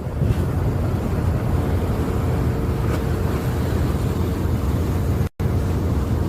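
A ship's engine drones steadily under wind and sea noise on deck. The sound cuts out for an instant near the end.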